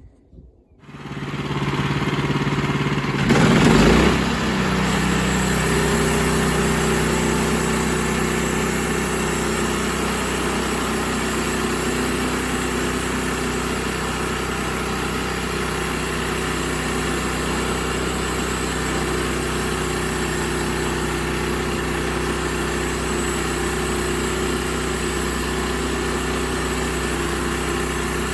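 Sawmill engine comes in about a second in, with a brief louder rush around four seconds, then runs steadily at a constant speed while the mill works a poplar log.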